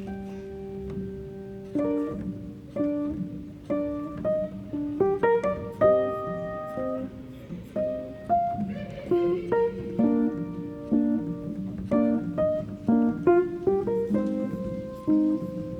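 Background music: a plucked guitar playing a melody of separate notes, with some piano.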